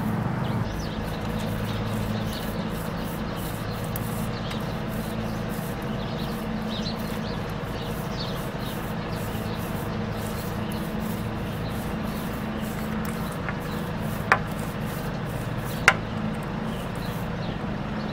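Wind buffeting the microphone with a steady low rumble, over the soft rub of a small foam roller spreading epoxy across a fibreglass rudder. Two sharp clicks near the end.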